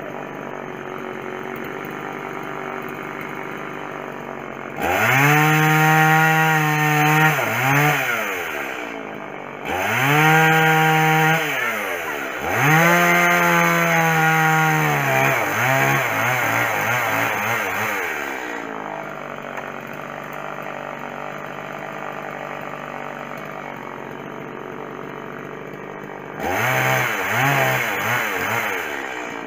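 Chainsaw engine idling, revved up to full throttle in bursts: three times between about 5 and 18 seconds in and once more near the end, each time dropping back to idle.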